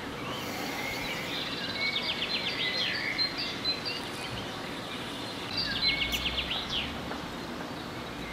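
A songbird sings twice, each song a fast trill of rapidly repeated high notes lasting about a second and a half, over a steady outdoor background hiss.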